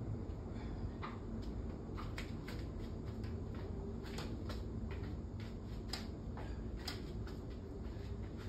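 Sneakers tapping and scuffing on a foam exercise mat during push-ups and mountain climbers: light, irregular ticks a few times a second over a steady low room hum.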